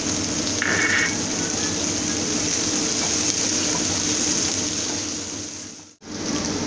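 Chopped onions sizzling steadily in hot oil in a frying pan as they fry toward brown, stirred with a wooden spatula, over a steady low hum. The sound cuts off abruptly about six seconds in.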